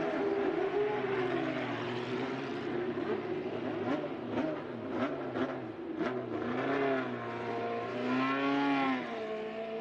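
Formula One racing car engines running and revving, several at once, their pitch rising and falling, with a few sharp clicks in the middle.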